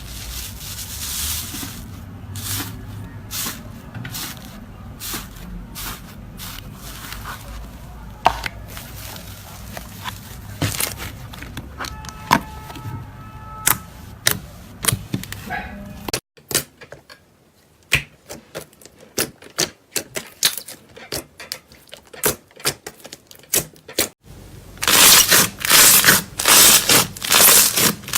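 Slime being handled by hand, a string of sticky clicks, crackles and pops. About two-thirds of the way through it turns to sparse crisp pops. Near the end it becomes loud crackly squishes about twice a second as the slime is pressed or poked.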